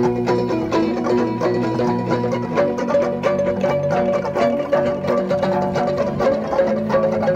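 Violin played pizzicato, plucked in quick notes while held like a guitar, over chords from an amplified electric guitar.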